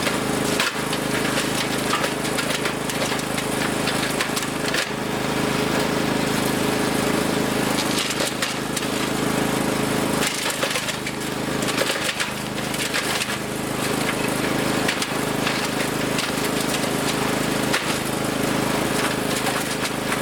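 Gas-engine wood chipper running steadily while it chips branches, with frequent sharp cracks and snaps of wood breaking up in the chipper.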